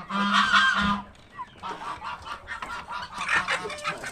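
Domestic geese honking: one long, loud honk in the first second, then a string of shorter honks.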